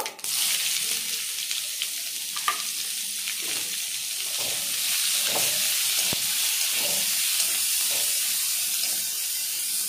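Chopped onion going into hot mustard oil in a wok and sizzling: a loud hiss that starts suddenly as the onion goes in and then holds steady. A few light knocks and scrapes of a spatula stirring the onion come through it.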